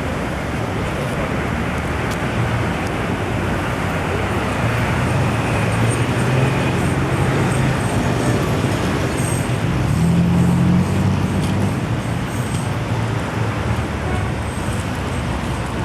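Road traffic noise: a steady rush of motor vehicles with a low engine hum that shifts in pitch and swells slightly about two-thirds of the way through.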